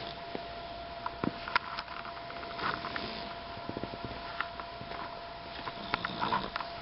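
A sleeping pet snoring, two slow snoring breaths about three and a half seconds apart, with a few sharp little clicks and a faint steady hum behind.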